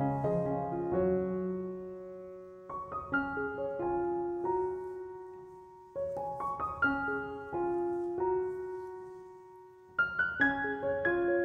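Background piano music: slow, gentle phrases of struck notes and chords, each fading away before the next phrase starts, roughly every three to four seconds.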